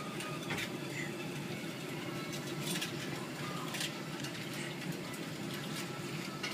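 Small restaurant's room noise: a steady low hum with scattered light clicks and clinks.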